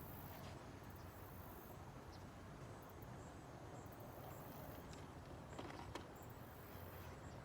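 Faint, short high chirps of insects over a low steady rumble, with a couple of faint clicks about six seconds in.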